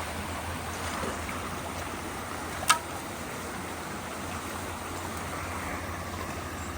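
Rain-swollen water rushing steadily through a clogged road culvert, with one sharp knock about two and a half seconds in.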